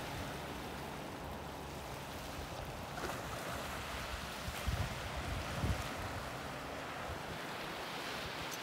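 Small ocean waves breaking and washing up onto a rocky shore in a steady hiss of surf, with a few low bumps of wind on the microphone around the middle.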